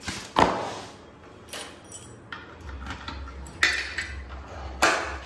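Keys clinking and a motorcycle's locking fuel-tank cap being unlocked and flipped open: a handful of sharp metallic clicks and clinks, the loudest about half a second in.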